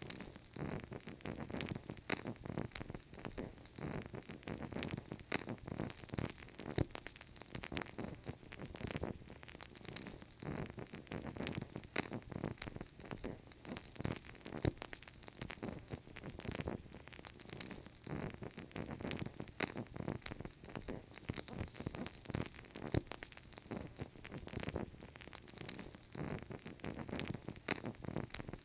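Wood fire crackling and popping steadily in a fireplace, with many small sharp snaps over a low rumble of burning.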